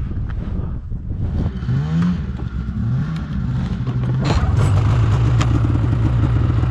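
Small gasoline engine revving up twice, then running steadily at a higher, louder pitch.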